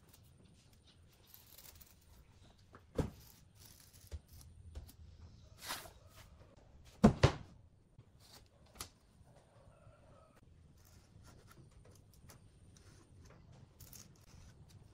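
Wooden boards handled on a wooden workbench: a sharp knock about three seconds in, a sliding scrape, then a loud double knock as a board is set down, with soft ticks and rustles of pen-marking and template handling in between.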